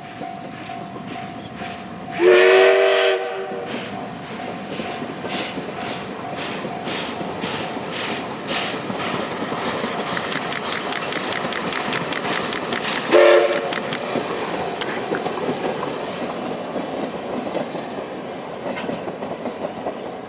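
Steam locomotive passing at speed with rhythmic exhaust chuffs. Its steam whistle blows one long blast about two seconds in and a short blast about thirteen seconds in, over the clatter of the train on the rails.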